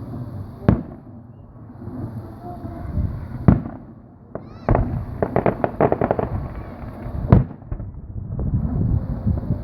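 Aerial fireworks going off: single booming bursts about a second in, a little after three seconds and near seven seconds. In the middle a short rising whistle is followed by a run of rapid crackling pops.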